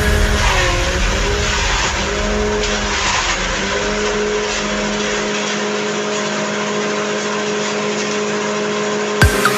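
Small engine driving a grass chopper (chaff cutter), running steadily with its pitch dipping briefly now and then as stalks are fed into the blades. It cuts off sharply near the end.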